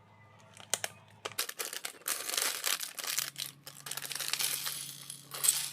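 Plastic packaging crinkling and rustling, with sharp clicks, starting about a second in and stopping just before the end, as of a bag of building blocks being handled and opened.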